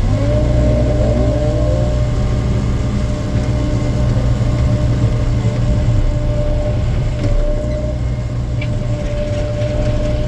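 Excavator diesel engine running steadily with a constant hydraulic whine over it. Several tones rise in pitch over the first two seconds, and a few faint clicks and knocks come near the end.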